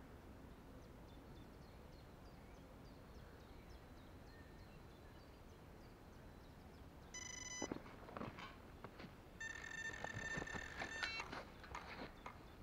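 Electronic carp bite alarm going off as a carp takes the bait: a short beep about seven seconds in, then a steady tone for nearly two seconds, with irregular clicks and knocks through the second half.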